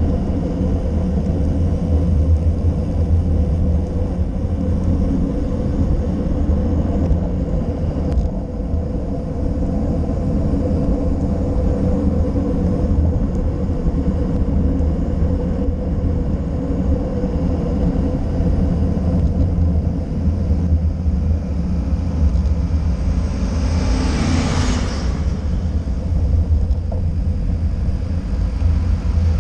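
Steady low rumble of wind buffeting a handlebar-mounted GoPro Session and road-bike tyres on asphalt during a fast descent, with a brief louder hiss near the end.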